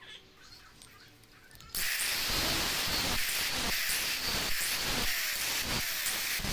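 Angle grinder's abrasive disc grinding into a small flat steel bar, starting abruptly about two seconds in and running on as a loud, rough, steady grind.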